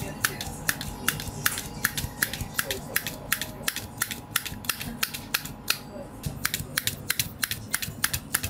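Handheld blade meat tenderizer pressed repeatedly into thick pork loin cutlets on a plastic cutting board, making a rapid, even series of sharp clicks, about four a second.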